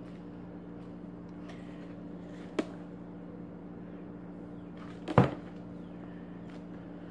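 Steady low electrical-sounding hum with two sharp pops or snaps, one about two and a half seconds in and a louder, doubled one about five seconds in.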